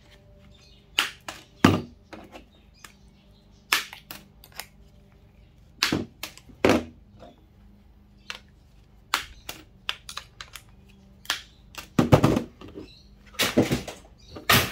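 Irregular sharp snaps and clacks of side cutters chopping the metal pins off plastic power-pack plugs, with pieces and tools set down on a workbench, the clicks coming thicker near the end.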